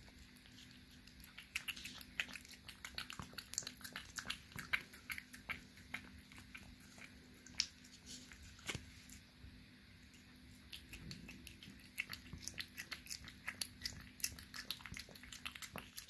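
A tabby kitten licking a lickable paste treat from a squeezed stick pouch: a quick run of wet, smacking lick clicks that eases off briefly midway and then picks up again.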